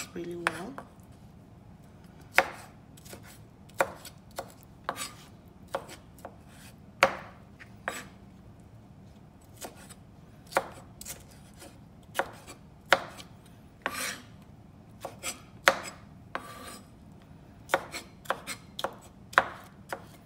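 Chef's knife chopping tomatoes on a wooden cutting board: irregular sharp knocks of the blade striking the board, about one or two a second.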